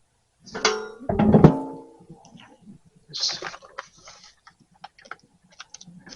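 Objects being handled and set down on a workbench: two loud ringing clanks about a second in, then lighter clicks and rummaging.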